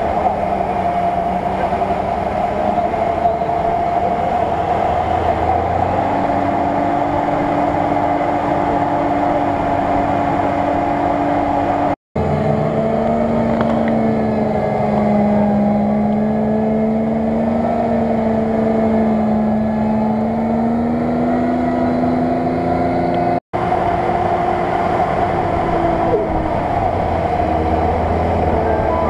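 Off-road 4x4 engines running under load in deep mud, held at fairly steady revs that slowly rise and fall. The sound cuts off abruptly twice, about twelve seconds in and again about twenty-three seconds in, each time resuming with a different engine note.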